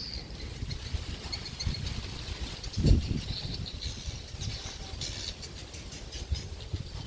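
Outdoor ambience with faint, scattered high chirping over a low rumble, and a single dull thump about three seconds in.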